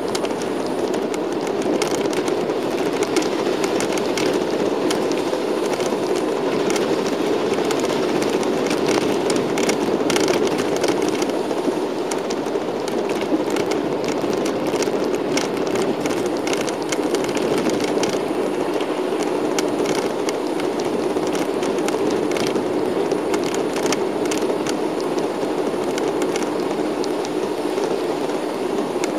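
Steady engine and road noise of a moving shuttle bus heard from inside the cabin, with light crackling ticks scattered throughout.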